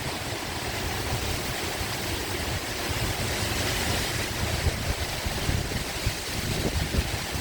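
Heavy thunderstorm rain pouring down in strong wind, a steady hiss with a gusty low rumble of wind buffeting the microphone.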